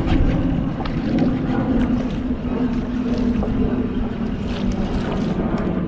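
Boat motor running with a steady low hum, with wind buffeting the microphone.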